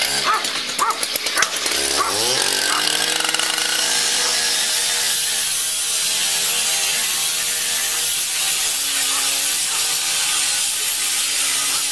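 A handheld disc cutter spins up about two seconds in, its pitch rising fast, then runs steadily as its abrasive disc grinds through a metal door. A few short, sharp sounds come before it starts.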